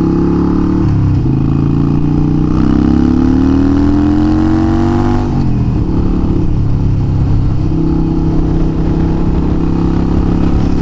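Harley-Davidson Iron 883 Sportster's air-cooled V-twin engine under way. The engine note rises, drops at a gear change about a second in, climbs again for a few seconds, drops back near the middle, then holds steady at cruising speed.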